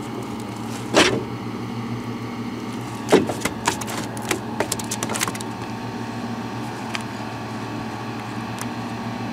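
A sheepshead flopping and slapping on wooden pier planks: one sharp slap about a second in, then a flurry of slaps and knocks between about three and five seconds, over a steady low hum.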